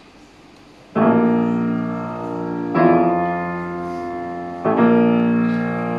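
Grand piano playing three sustained chords, struck about two seconds apart and each left to ring and fade. The first comes about a second in, after a moment of low room hum.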